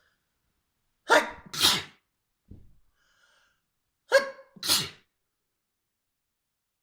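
A person sneezing hard: two pairs of quick, explosive sneezes about three seconds apart.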